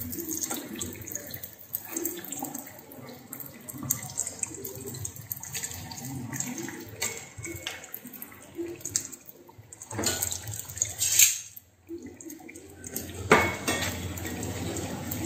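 Dough sticks for yu char kueh (Chinese fried crullers) deep-frying in hot oil in a steel wok, the oil sizzling and crackling with many small pops. A metal spatula and tongs knock and scrape against the pan now and then as the sticks are turned.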